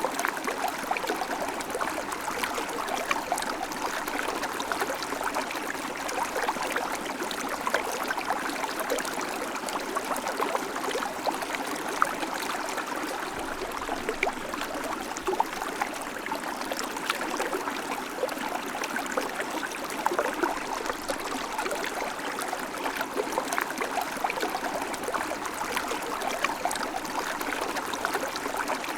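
River water flowing over rocks: a steady rushing babble with many small splashes and trickles, unchanging throughout.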